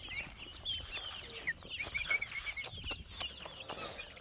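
Chickens calling with many short, high chirps, with a few sharp clicks in the middle.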